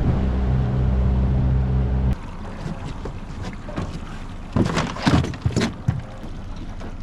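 Boat's outboard motor running under load, then dropping sharply to a low rumble about two seconds in; a few seconds later water splashes and sloshes against the hull a few times.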